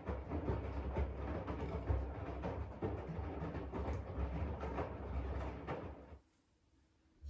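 AEG 7000 Series washing machine tumbling laundry in its main wash: a rumbling swish of drum and water with small knocks. The drum stops about six seconds in, and the sound drops to near silence.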